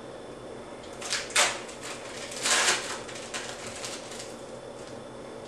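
Thin plastic wrapper crinkling as an individually wrapped cheese slice is peeled out of it: two main rustling bursts, about a second and two and a half seconds in, with smaller rustles between.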